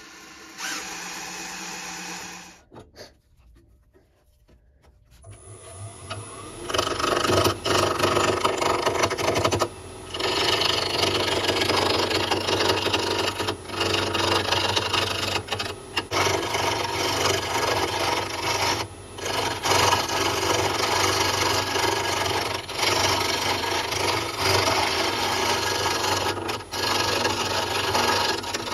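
A drill press motor runs briefly, then a wood lathe spins up about five seconds in. From about seven seconds a gouge cuts into the spinning wooden handle blank in a continuous scraping, rasping noise, with a few short pauses as the tool is lifted.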